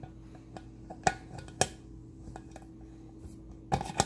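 Plastic lid of a glass coffee-maker carafe clicking and knocking against the pot as it is worked into place: a couple of single sharp clicks about a second in, then a quick cluster near the end, over a faint steady hum.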